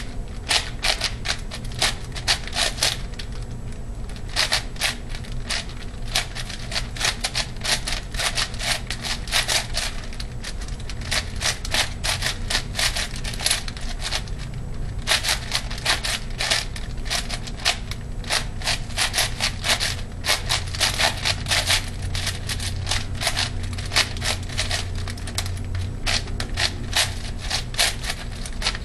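ShengShou 8x8x8 puzzle cube being speedsolved: rapid, continuous clicking and clacking of plastic layers being turned, with a couple of short pauses.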